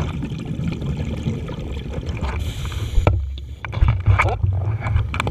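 Scuba diver's regulator breathing heard underwater through a GoPro housing: a short hiss of inhalation a little past two seconds in, then exhaled bubbles gurgling and popping, over a steady low rumble of water on the housing.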